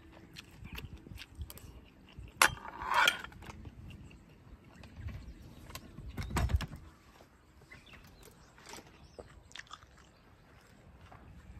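Eating from a mess tin with a metal spoon: scattered small clicks and chewing, a sharp clink and brief scrape of the spoon against the tin about two and a half seconds in, and a dull knock about six and a half seconds in as the tin is set down on a wooden table.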